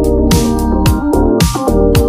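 Background electronic music: a kick drum about twice a second with sharp percussion hits over sustained keyboard chords.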